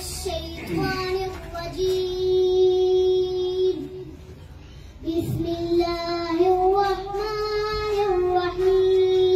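A young girl reciting the Quran in a melodic chant into a microphone, holding long notes. She breaks off about four seconds in and resumes a second later.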